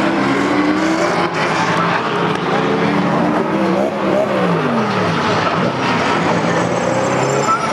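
Several V8 touring race cars at racing speed, their engine notes rising and falling over one another; one sweeps past with a falling pitch about four to five seconds in.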